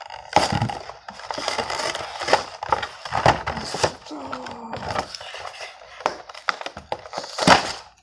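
Clear plastic toy packaging crinkling and tearing as it is pulled open by hand: a run of sharp crackles and rips, with the loudest rip near the end.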